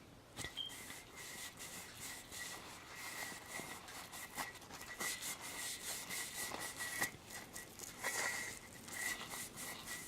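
Faint scrubbing of a burnt frying pan, a quick run of short scraping strokes, with a thin steady high tone under it.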